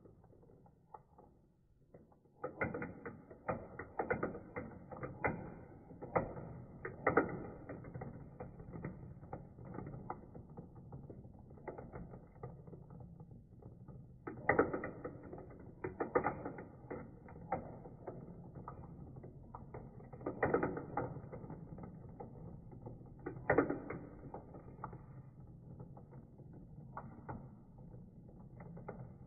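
Small plastic marbles clattering and rolling through a plastic marble run, in clusters of rapid clicks as batches of marbles are pushed into the track and drop through a spinning dish.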